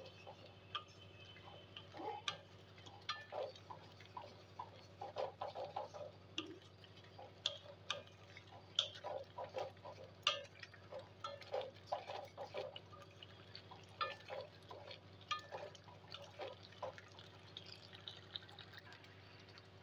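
Thick pumpkin-and-jaggery chutney simmering in a kadai: soft, irregular pops and plops as bubbles burst through the sauce, over a low steady hum.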